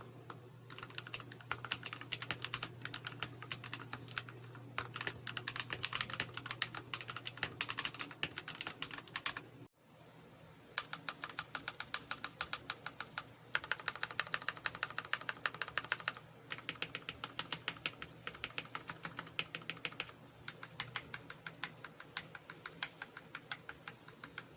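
Typing on a TOM680 mechanical keyboard with lubed Akko CS Rose Red linear switches: rapid, continuous key presses. There is a brief break about ten seconds in, and an even, fast run of strokes a few seconds later.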